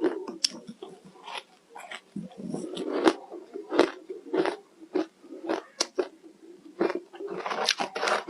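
A person biting and chewing ice, a string of irregular crunches and cracks.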